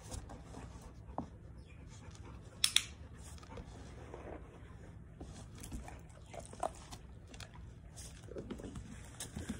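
A dog's small movements in a quiet room: faint rustling and scattered light clicks, with a sharp double click a little under three seconds in.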